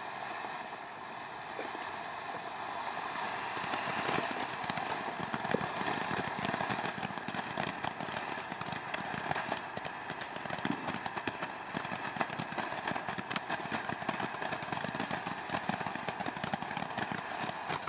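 Ground fountain firework spraying sparks: a steady hiss with dense crackling that goes on without a break and cuts off abruptly at the end.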